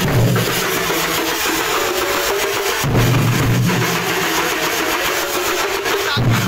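A festival procession drum troupe beating large rope-laced barrel drums with sticks in a fast, dense rhythm. A low steady hum comes and goes under the drumming, starting about three seconds in and again near the end.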